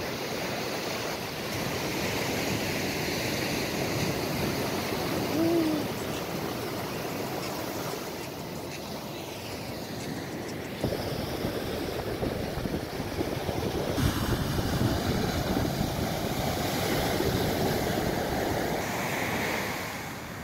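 Ocean surf washing onto a sandy beach, a steady rush of breaking waves.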